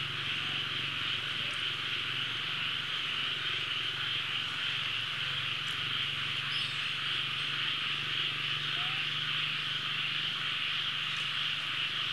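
Steady high-pitched insect chorus, a continuous shrill drone, with a low steady hum underneath.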